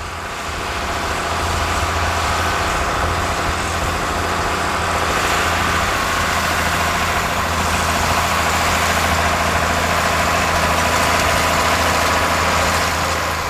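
1982 John Deere 4640's turbocharged, intercooled 7.6-litre 466 six-cylinder diesel running steadily under load while pulling a rolling harrow. It grows louder over the first couple of seconds and eases off slightly near the end.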